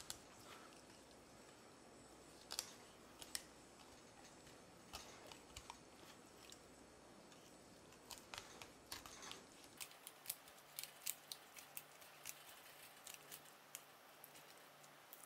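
Faint, scattered crackling clicks of a long chef's knife slicing along a whole salmon's backbone and ribs as a fillet is cut off. The clicks come more often in the second half.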